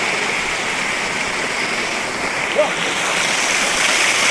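Waterfall rushing with a steady roar of falling water. A brief short sound cuts in a little past halfway.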